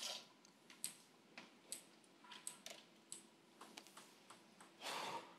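Faint, scattered ticks and clicks at irregular intervals, with a short breathy rush of noise about five seconds in.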